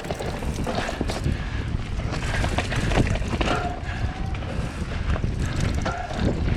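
Transition Scout mountain bike ridden over a rough dirt trail: a steady rumble of tyres on dirt and rock, with many scattered knocks and rattles from the bike over bumps.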